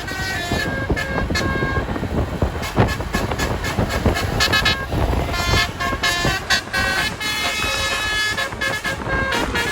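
Basuri telolet horn on a bus playing a tune of quickly changing notes, over engine and road rumble.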